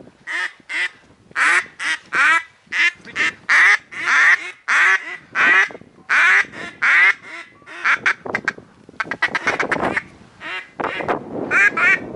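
Mallard-style duck quacking: a long run of loud, nasal quacks, about two a second, breaking into a faster run of short quacks about two-thirds of the way through.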